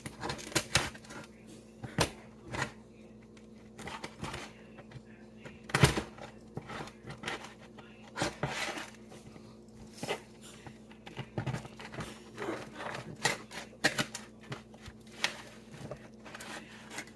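A knife cutting through a rack of cooked baby back ribs: irregular knocks and clicks, a few at a time, as the blade works through the meat and bone.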